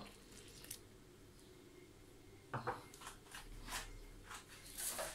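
Wooden spoon scraping and knocking against a glass mixing bowl while stirring hot water into flour, heard as a string of short scrapes and clicks, several a second, starting about halfway through.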